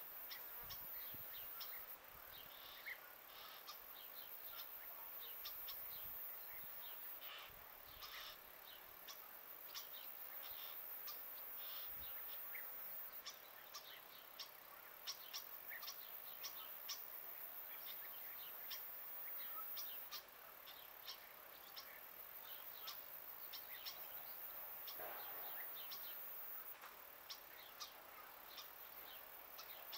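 Faint outdoor ambience of small birds chirping in short, scattered calls over a steady background hiss.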